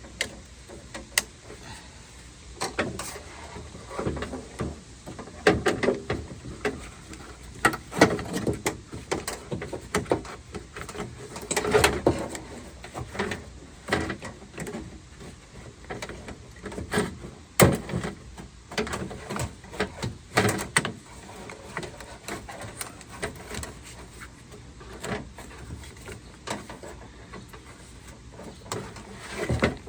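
Irregular clicks, knocks and rattles of car door parts being handled and fitted back together, with the loudest knocks clustered in the first two-thirds.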